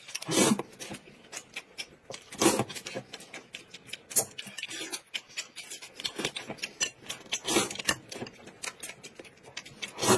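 Close-miked eating sounds of people at a meal: dense small clicks of chewing and mouth noise, with a handful of louder clicks and taps spread through.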